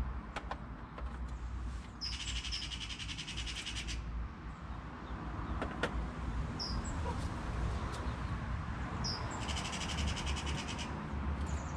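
Wild birds calling: two rapid rattling trills of about two seconds each, one a couple of seconds in and one near the end, with short high chirps between them. A couple of sharp clicks are also heard.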